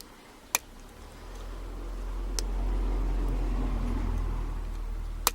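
Three sharp metallic clicks from lock picks working the pins of a Brinks 40mm padlock during single-pin picking, over a low rumble that swells and fades over a few seconds.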